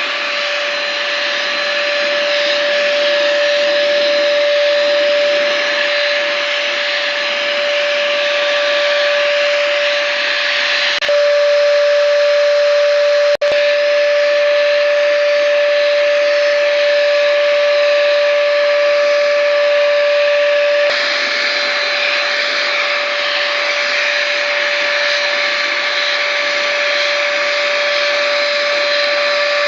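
Schultz electric spray gun running steadily, its motor's hum over the hiss of air and spray as it sprays primer. The sound cuts out for an instant about halfway through.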